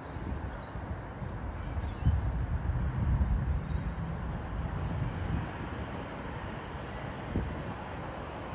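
Wind buffeting the microphone in low gusts, loudest about two to three and a half seconds in, over a steady outdoor hum from a distant HCMT electric train moving slowly through a stabling yard.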